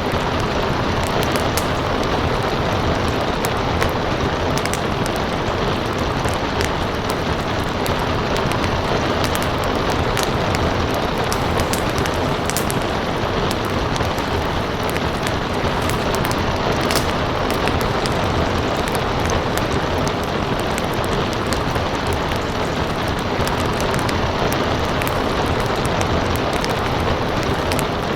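Steady rain with crackling fire: many small sharp pops and snaps scattered over an even rushing hiss.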